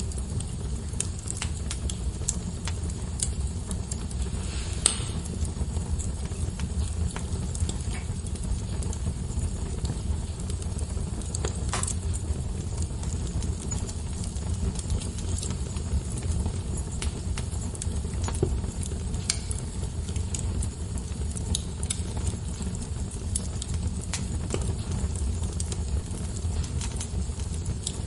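Wood fire burning in a fireplace: a steady low rumble of flame with scattered crackles and pops, two louder cracks about five and twelve seconds in.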